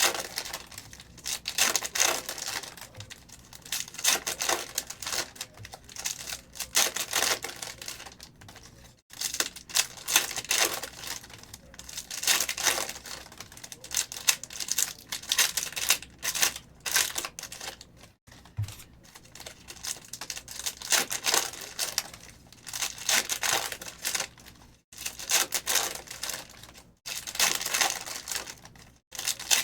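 Foil trading-card pack wrappers being torn open and crinkled, with cards handled in quick clicky flicks, in repeated bursts with brief pauses.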